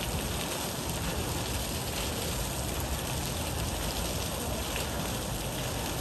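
Fountain water splashing in a steady, even wash.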